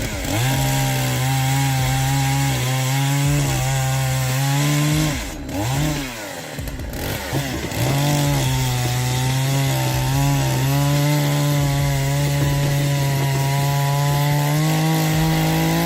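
Hyundai HYC6220 chainsaw running at high revs as it cuts wood, a steady engine note. It drops off for a couple of seconds about five seconds in, comes back up near eight seconds, and steps slightly higher in pitch near the end.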